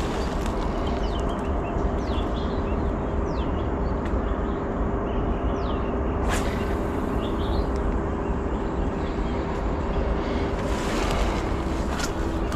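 Steady low outdoor rumble with a faint steady hum, over which a bird gives several short, high, downward-sliding chirps in the first half, and a few light clicks come later.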